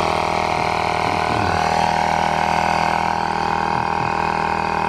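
A steady mechanical hum, like an engine running at constant speed, that cuts in suddenly just before and holds evenly.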